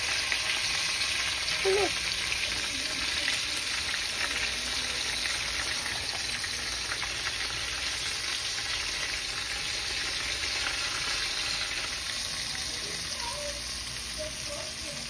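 Battered tilapia pieces deep-frying in vegetable oil in a steel pot: a steady sizzle of bubbling oil.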